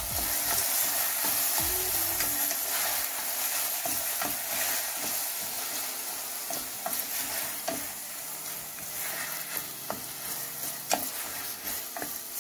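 Diced bell peppers and onion sautéing in oil in a stainless steel saucepan: a steady sizzle, with a wooden spoon stirring and scraping against the pan, giving scattered clicks.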